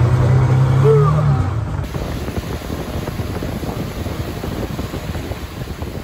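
River longboat's outboard motor running steadily, then, from about two seconds in, wind buffeting the microphone as the boat moves along the river.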